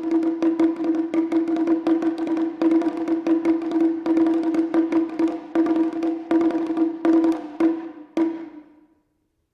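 Wadaiko (Japanese taiko drum) performance: a fast run of sharp drum and rim strikes over a steady held note. The strikes space out and die away about eight seconds in, fading to silence.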